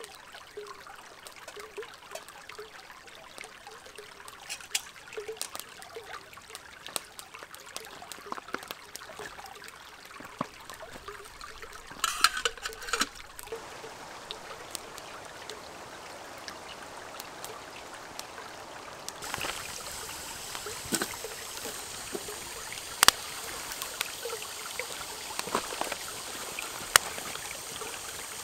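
Small forest creek trickling over stones, with scattered sharp clicks. About two-thirds of the way in, a campfire of split sticks starts crackling up close, with a few sharp pops over the running water.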